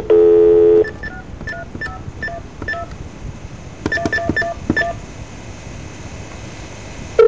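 A telephone line's dial tone sounds for under a second, then a string of short touch-tone (DTMF) key beeps as a number is dialled, with a quick cluster about four seconds in, over faint line hiss.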